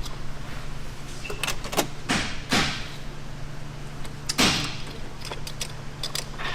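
Hand-tool work on a car's fuel-pump parts: a run of sharp clicks and knocks of metal and plastic, with two longer scraping sweeps about two and four seconds in.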